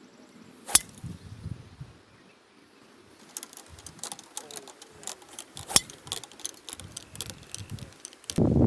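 Two sharp cracks about five seconds apart: a golf driver striking the ball. Between them there are many small, irregular ticks of rain, and a loud steady rushing noise starts just before the end.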